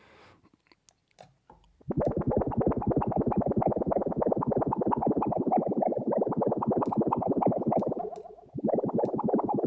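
Synthesized watery, bubbly patch from the Vital soft synth: a droplet sound run through a band-pass filter wobbled quickly by a sine LFO and a phaser, giving a rapid fluttering pulse. A few faint clicks come first. The sound then plays from about two seconds in, fades out near eight seconds and starts again shortly after.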